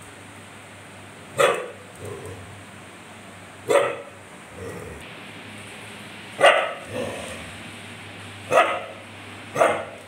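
A dog barking: five single sharp barks spaced about one to three seconds apart, a few followed by a softer, shorter sound.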